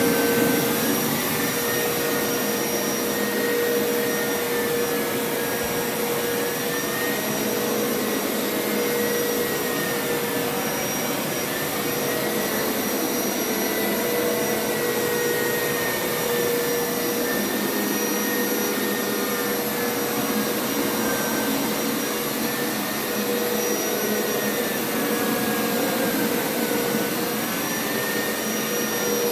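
Hoover Power Scrub Elite carpet washer running steadily, its suction motor droning with a higher whine that drifts up and down in pitch every few seconds as it draws dirty water up from the carpet.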